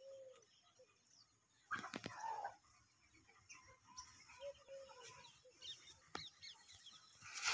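Chickens clucking faintly, with two drawn-out arching calls and a louder brief squawk or flutter of wings about two seconds in.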